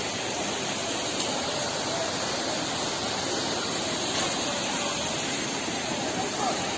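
Steady rushing of the Kodige waterfall, an unbroken roar of falling water that holds an even level throughout.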